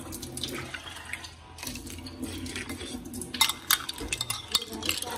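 Metal spoon stirring and scooping through ice cubes and agar jelly in a glass, with ice and spoon clinking against the glass. The clinks come thick and loud in the second half.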